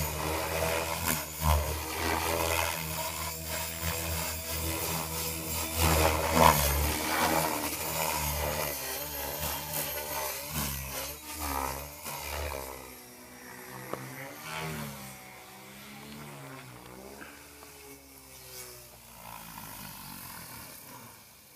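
Agile 5.5 radio-controlled helicopter flying aerobatics: its rotor and drivetrain make a steady buzz whose pitch rises and falls with the manoeuvres. It grows quieter in the second half.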